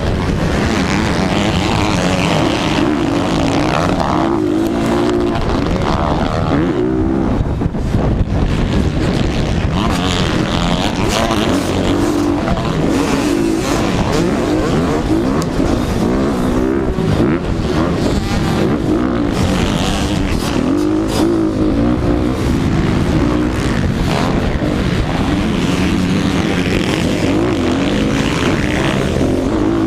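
Motocross dirt bike engine revving hard, its pitch rising and falling over and over with the throttle and gear changes, with wind noise on the microphone.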